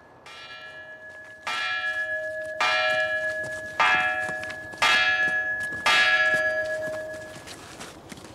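A bell tolling, about six strikes a second or so apart, each ringing on into the next. The strikes grow louder from about a second and a half in, and the ringing dies away near the end.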